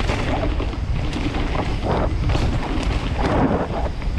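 Wind buffeting the microphone of a camera on a mountain bike moving at speed down a dirt trail, with an uneven rumble of tyres on the ground that swells and eases.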